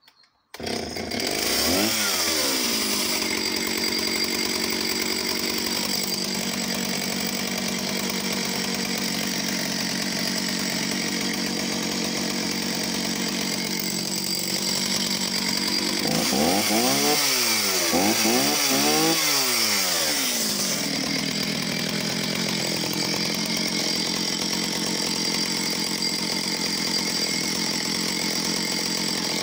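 A vintage Oleo-Mac 251 two-stroke chainsaw bursts into life about half a second in, just after the choke is taken off, and runs loud and steady. A little past halfway its revs dip and rise a few times, then settle again.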